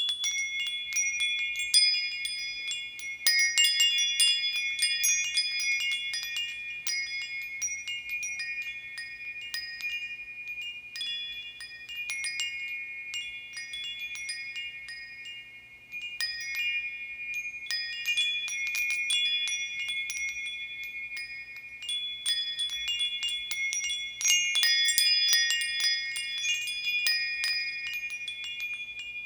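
Metal bar chimes (a mark tree) ringing in dense runs of overlapping high, tinkling tones. The runs swell and fade in waves, dropping to a soft ring about halfway before building again.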